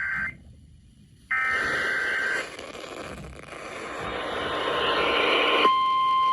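Emergency Alert System SAME digital data bursts: two screeching two-pitch bursts about a second apart, with a hiss of static rising after them. Near the end a steady single-pitch alert tone starts suddenly, the NOAA Weather Radio 1050-hertz warning alarm tone that comes before a warning is read.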